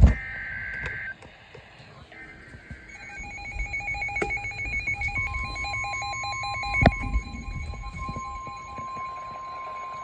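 Emergency Alert System severe thunderstorm warning starting: two short screechy digital data bursts, the SAME header, then rapid pulsing alarm beeps, joined about five seconds in by a steady single-pitch warning tone. A sharp thump sounds near seven seconds.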